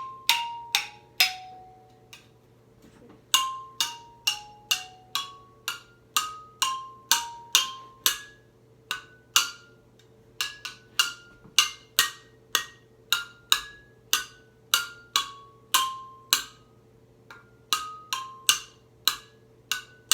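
Xylophone bars struck one note at a time in a tune, each note short and dry with a sharp click at the strike. The bars are being tried with an object on or against them in search of an unusual sound.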